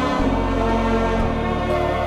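Background music from a TV drama score: sustained chords over a deep held bass note that changes pitch shortly after the start and again about a second in.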